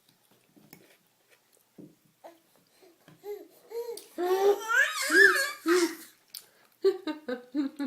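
A baby babbling, with high-pitched squealing sounds that are loudest about halfway through, then a quick string of short laughs near the end.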